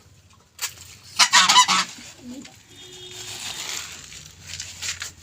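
Domestic geese honking: a short call about half a second in, then a louder run of honks lasting under a second.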